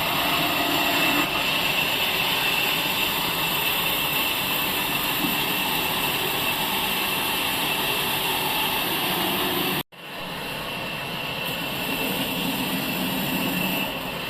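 Sawmill saw machinery running steadily with a constant high whine, cut off abruptly about ten seconds in and resuming slightly quieter straight after.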